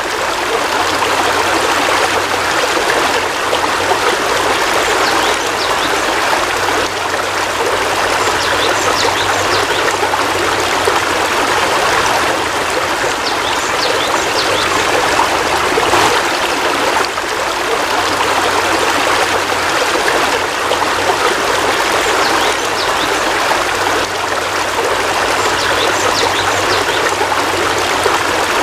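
Heavy rain falling steadily, a dense, even hiss of water without let-up.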